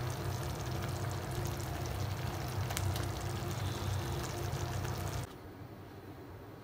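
Beef pares braising liquid bubbling at a simmer in the pot, with small pops over a steady low hum. It cuts off about five seconds in, leaving only a faint hiss.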